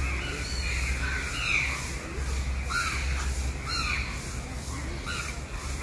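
Birds calling repeatedly, short harsh calls one or two a second, several overlapping, over a steady low rumble.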